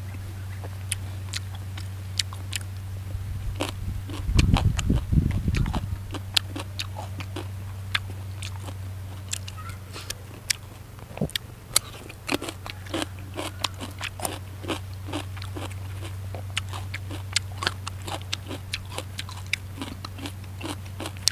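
A person chewing and biting fresh raw vegetables, with many short crisp crunches all through. A brief low rumble comes about four to six seconds in.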